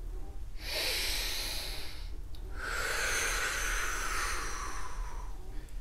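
A man's deep breath: an inhale lasting just over a second, a short pause, then a longer exhale that fades away.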